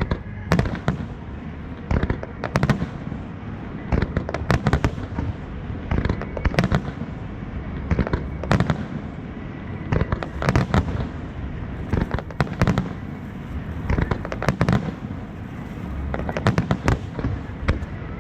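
Fireworks bursting in a rapid, continuous barrage: clusters of sharp bangs about every second or two, over a steady rumble from the shells.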